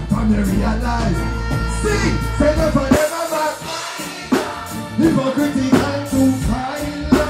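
Live reggae band music played loud through a PA system, with a male vocalist singing and chanting over the beat. The deep bass drops out for about a second, about three seconds in, then comes back.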